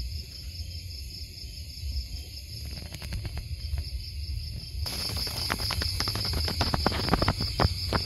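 Night insects trilling steadily in a high, rapidly pulsing tone. From about five seconds in, a dense rustling crackle of short clicks joins and becomes the loudest sound.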